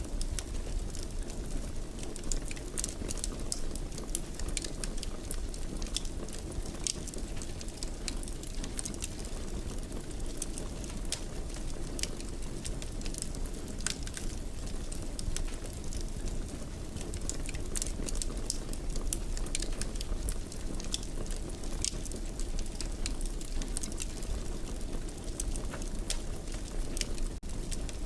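Wood fire burning steadily, with a low rumble and frequent small crackles and pops scattered throughout.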